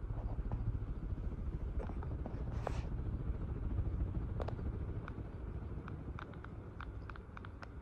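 Craftmade CXL ceiling fan running: a low, steady rumble with scattered light ticks and clicks, and one short hiss near the middle.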